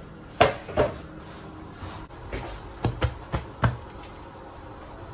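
Hands pressing and spreading a mass of risen yeast dough on a granite worktop, with several short knocks and taps: two in the first second, then a quick run of four about three seconds in.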